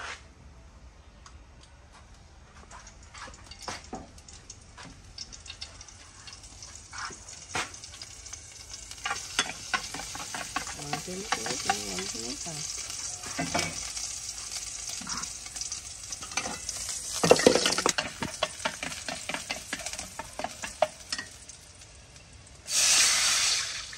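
Kitchen preparation sounds: scattered clicks and clatter of utensils, with a hissing, scraping noise that builds through the middle. A loud clatter comes about two-thirds of the way in, and a brief loud rush of noise follows near the end.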